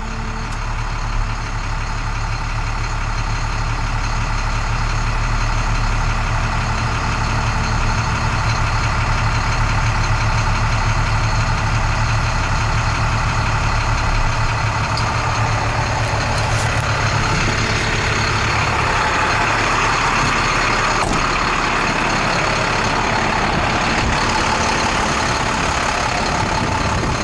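International DT466 diesel engine running steadily while driving the hydraulic hoist that raises the 16-foot grain body. About two-thirds of the way through, the low engine note weakens under a louder hiss.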